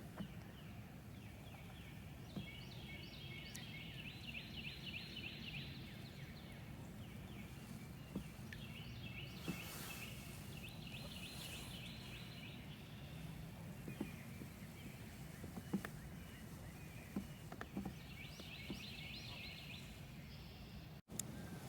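A bird calling outdoors, three times, each a rattling run of rapid high notes lasting a couple of seconds, over a faint steady low background with a few light knocks.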